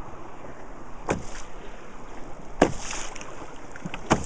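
Canoe paddle strokes in the river: three short splashes about a second and a half apart, over a steady hiss of water.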